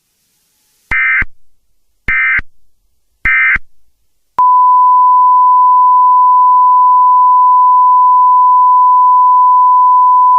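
Emergency Alert System end-of-message data tones: three short warbling bursts of digital data about a second apart, closing the alert. About four seconds in, a single loud, steady, pure beep tone starts and holds without a break.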